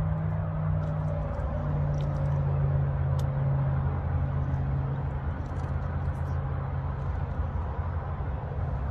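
A steady low engine hum, its pitch stepping up slightly about a second and a half in, with faint high clicks scattered over it.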